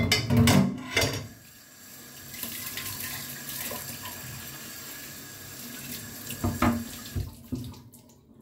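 Kitchen tap running water into the sink, a steady rush, with a burst of knocks and clatter in the first second and a few more knocks near the end.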